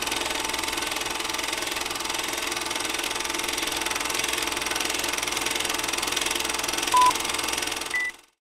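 Film projector sound effect: a steady mechanical clatter and hiss of film running through the gate. A single short beep sounds about seven seconds in, a brief higher blip follows a second later, and then the sound cuts off suddenly.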